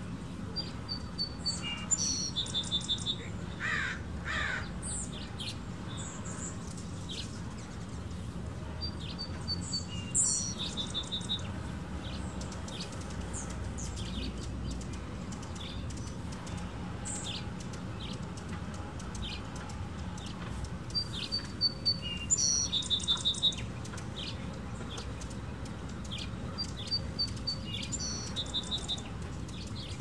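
Hummingbirds at nectar feeders chirping: many quick high chips, with a short twittering phrase that comes four times and a lower falling call about four seconds in, over steady low background noise.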